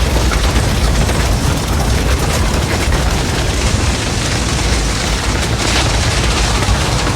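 Large structure fire burning: a steady deep rumble of flames with dense crackling and snapping throughout.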